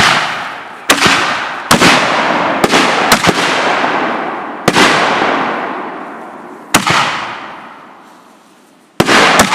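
Consumer aerial fireworks going off in quick succession: about nine sharp bangs, irregularly spaced, each trailing off in a fading crackle and hiss.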